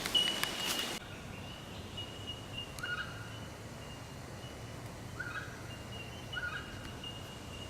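Faint bird calls in the bush: a few short calls over a thin, steady high-pitched tone that comes and goes.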